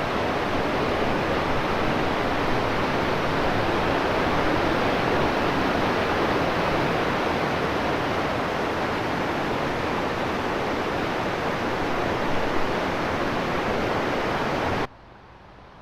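Steady rushing water of a waterfall. It cuts off abruptly near the end, leaving a faint hiss.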